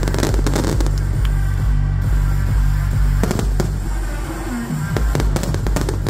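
Aerial firework shells bursting in quick clusters of bangs and crackles, at the start, about three seconds in and again near the end, over loud music with a steady pounding bass beat.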